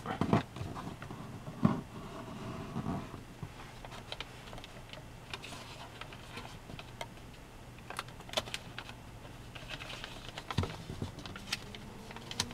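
A sheet of origami paper handled and creased by fingers on a table: irregular rustling, crinkling and light taps, with a couple of louder knocks in the first two seconds.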